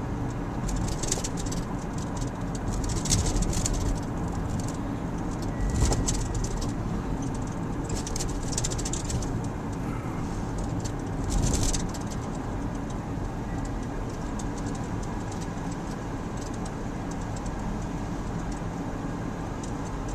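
Car driving, heard from inside the cabin: a steady low road and engine rumble, with several brief hissing swishes in the first twelve seconds or so.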